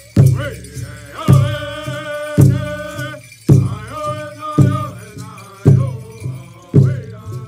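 Pueblo dance song: a group of men chanting together over a large drum struck in a steady beat, about one stroke a second.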